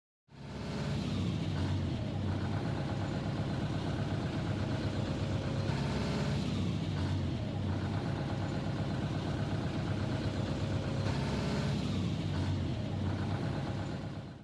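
Bus engine running steadily, its note shifting slightly a few times.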